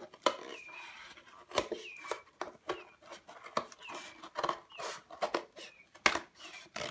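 Scissors cutting through cardboard, a string of sharp snips and crunches, while a pea chick peeps over and over in short falling chirps.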